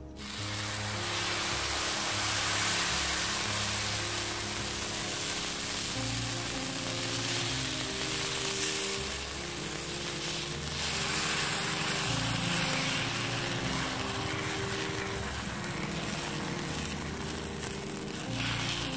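Dosa batter sizzling on a hot iron griddle as it is poured and spread out with a ladle, over background music with held notes.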